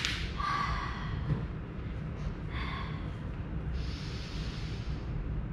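A woman breathing audibly while resting after exercise: a few separate breaths, the longest exhale about four seconds in, over a steady low hum.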